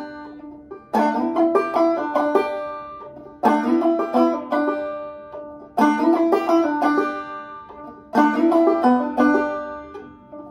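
Gold Tone banjo played clawhammer style: a short lick, a slide up on the G and D strings followed by a pull-off, played four times with a brief pause between. Each time it starts with a sharp strike and rings down.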